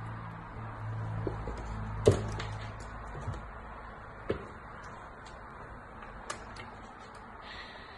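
Kitten playing with a small toy on a wooden floor: a few sharp knocks and taps, the loudest about two seconds in, over a low hum that fades after about three seconds.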